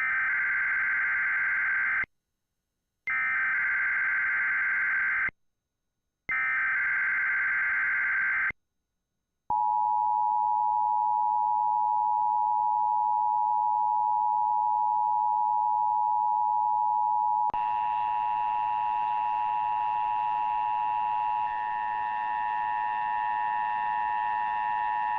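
Emergency Alert System test header from an EAS encoder/decoder: three bursts of SAME data tones, each about two seconds long with a second's gap between them. Then the steady two-tone EAS attention signal, joined by further steady tones about halfway through.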